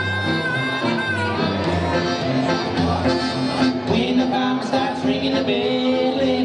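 Live western swing band playing an instrumental break: accordion and electric archtop guitars over an upright double bass stepping through a boogie bass line, with a held high note near the start.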